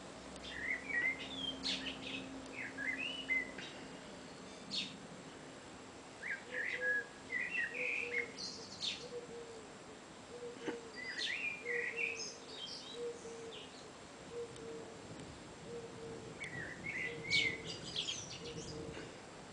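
A small songbird singing in short bursts of quick chirping and twittering notes, with sharp upward squeaks, one burst every few seconds, four in all.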